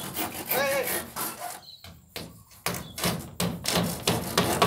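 Hand saw cutting through a wooden board in quick back-and-forth strokes, the strokes running steadily through the second half; a man's voice is heard briefly near the start.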